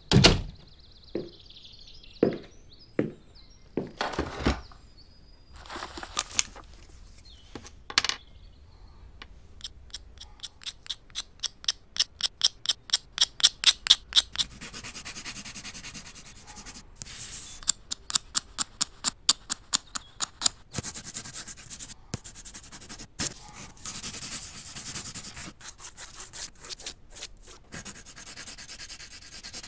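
A blade shaving the wood and lead of a coloured pencil in quick strokes, about four a second, sharpening it by hand. Later a coloured pencil scratches across paper in drawing strokes. A few knocks come before the shaving.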